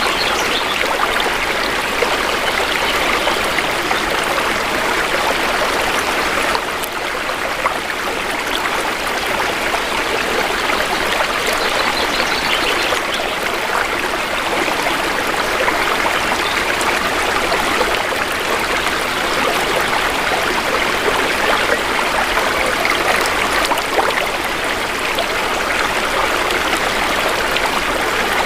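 Shallow river water flowing steadily, a continuous rushing and trickling babble with a slight lull about seven seconds in.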